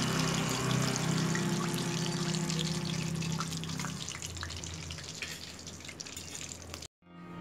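Hot oil sizzling and crackling in a steel kadai as a fried fish is lifted out and the oil keeps bubbling. It cuts off abruptly near the end.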